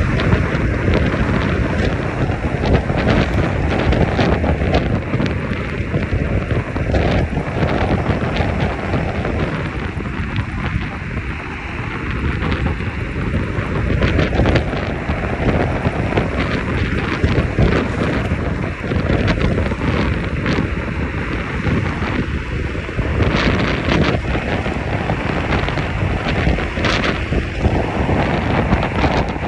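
Heavy wind buffeting on the microphone: a loud, low rumble that swells and eases every few seconds, with scattered small clicks and knocks.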